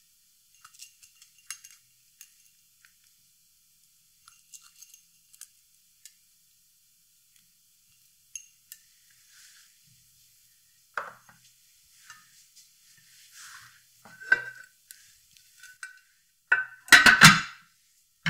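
Faint short ticks and taps as whole cloves and spices are pressed onto orange slices in a glass roasting dish, followed by louder handling of the dish. Near the end a glass lid is set onto the glass roaster with a sharp clatter of glass on glass.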